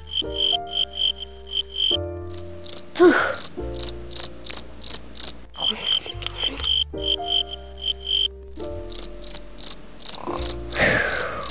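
Crickets chirping in a steady rhythm, about three chirps a second, the chirps switching between a lower and a higher pitch every second or two.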